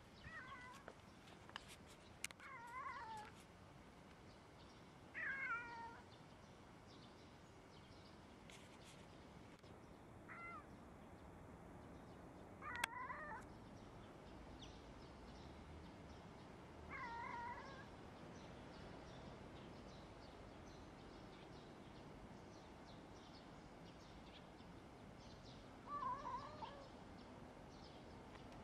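A cat meowing: about seven short meows, each under a second, spaced a few seconds apart. A single sharp click comes just before one of the middle meows.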